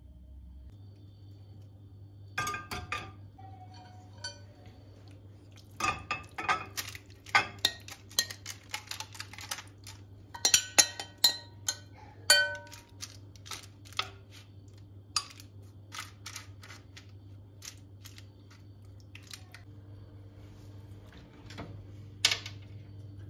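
A utensil clinking and scraping against glass dishes as marinated chicken is spooned from a glass bowl into a glass baking dish, in a quick string of sharp clinks. A single louder clack comes near the end as the oven door is handled, over a steady low hum.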